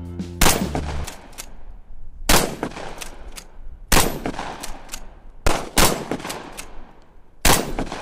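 Rifle shots fired one at a time, about six loud cracks spaced a second and a half to two seconds apart, each with a short echo, with fainter shots between them.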